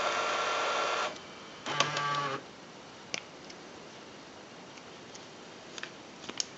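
Sony CCD-TR840E Hi8 camcorder's tape transport winding the tape forward at speed, a steady mechanical whir that stops about a second in. A brief motor whir of the mechanism follows near two seconds in, then a few faint clicks.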